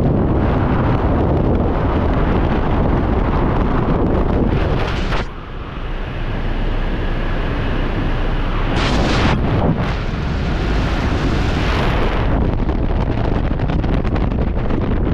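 Wind rushing over a skydiver's helmet-camera microphone in freefall. About five seconds in it drops suddenly as the parachute is deployed, then comes back as the canopy opens and the jumper flies under it.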